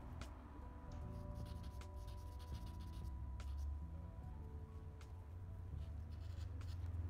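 Vine charcoal scratching on newsprint paper in two runs of quick short strokes, about a second in and again near the end. Soft background music with low held notes runs underneath.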